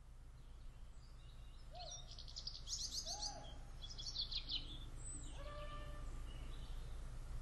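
Songbirds singing: two bursts of fast, high trills about two and four seconds in, over a low steady rumble, with a short pitched note a little after five seconds.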